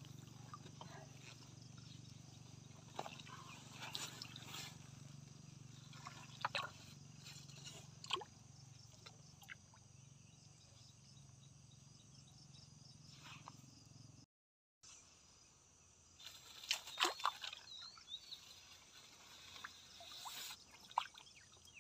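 Quiet riverside outdoor ambience. A steady low rumble runs for the first two-thirds, with scattered sharp clicks and splashes. There is a half-second dropout, then high chirping calls of small animals near the end.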